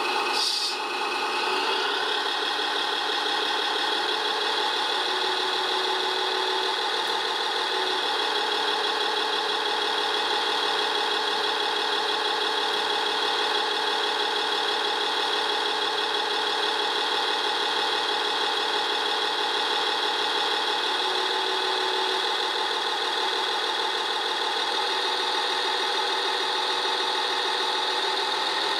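Simulated diesel engine idling steadily with a rattle, as played by an RC construction model's engine sound module, with a brief clatter about a second in.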